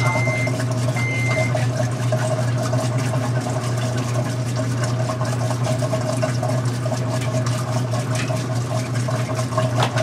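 Washing machine filling and running: a steady rush of water over a low hum. Two short electronic beeps sound in the first second and a half.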